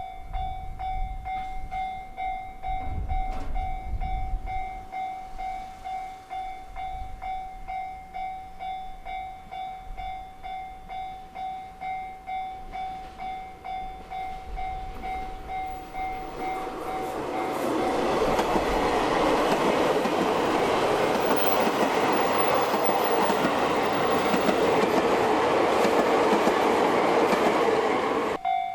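Japanese level-crossing warning bell ringing in a steady repeating ding. From about 17 seconds in, a train passes over the crossing, and the louder rumble and wheel clatter cover the bell.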